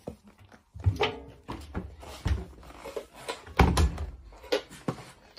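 Several dull thumps and knocks against a front-loading washing machine, the loudest a little past halfway.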